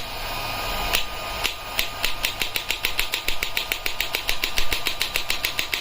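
Shockwave therapy applicator firing: a few single pulse clicks, then from about two seconds in a fast, even clicking of about eight pulses a second as the frequency is turned up.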